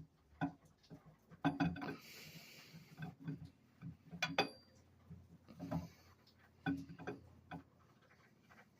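Camshaft being worked out of a Chrysler 360 engine block, knocking and scraping against the cam bearings in irregular metallic clicks and clunks, with a short scrape about two seconds in. The cam lobes are nicking the bearings as it comes out.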